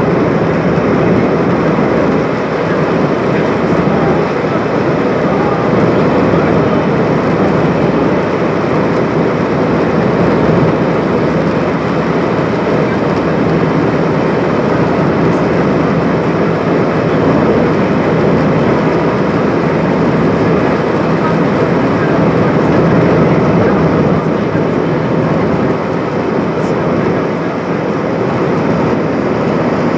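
Steady cabin noise of an Airbus A320-232 in flight: its IAE V2500 turbofan engines and the airflow along the fuselage, heard from a window seat over the wing while the airliner climbs through cloud.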